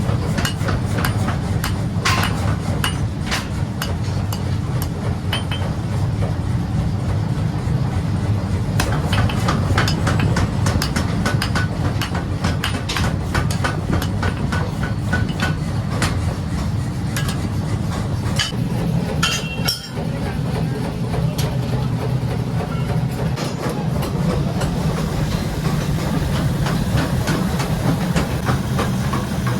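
Hammer blows ringing on hot iron at the anvil, many sharp strikes at an uneven pace, over a steady low drone of workshop machinery.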